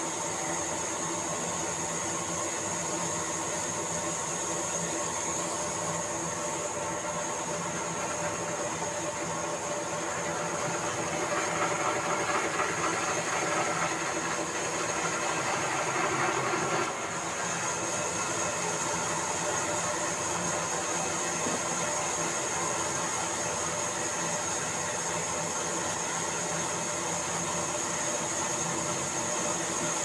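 Large vertical band saw running steadily with a constant high tone while logs are sawn on its table. From about eleven seconds in the sound grows louder for several seconds as the blade cuts through the wood, then drops back suddenly.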